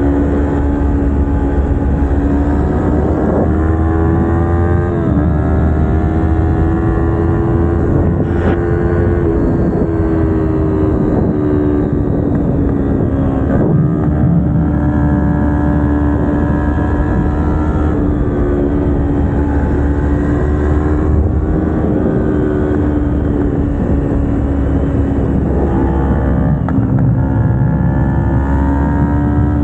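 Kawasaki Ninja 250R's parallel-twin engine with aftermarket headers and exhaust, running under way. Its note rises and falls with the throttle and is broken a few times by sudden drops in pitch.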